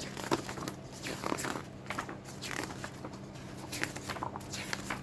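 Paper and cardboard being handled: irregular rustles and light taps as a board game's rule book and components are moved and leafed through.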